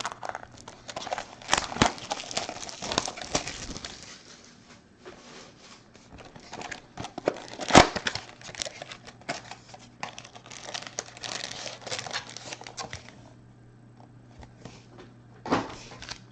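Crinkling and tearing of foil trading-card pack wrappers and packaging being opened by hand, in irregular rustling spells with a few sharp knocks, the loudest about eight seconds in.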